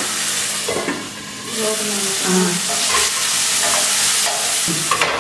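Onions and tomatoes sautéing in oil in a pan, sizzling steadily while a wooden spatula stirs and scrapes through them.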